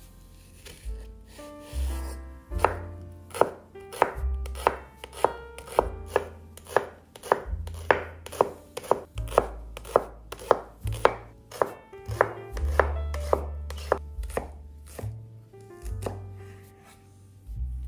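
Santoku knife slicing a leek into rings on a wooden cutting board: sharp knife strikes on the board, about two a second, starting about two seconds in.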